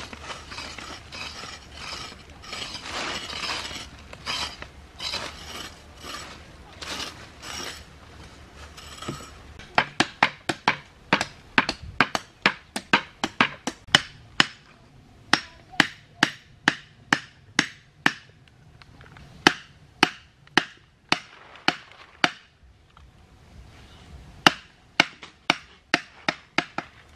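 Bamboo stakes being knocked into the ground: sharp knocks in quick runs, about two a second, starting about ten seconds in. Before that, a rough, pulsing scraping of work in dry soil.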